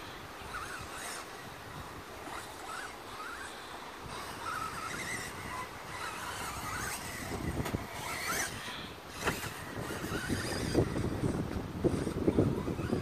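Sworkz S12-1R 1/8-scale radio-controlled off-road buggy driving laps on a wet track, its motor's pitch rising and falling with the throttle. Wind buffets the microphone, gusting louder in the last few seconds.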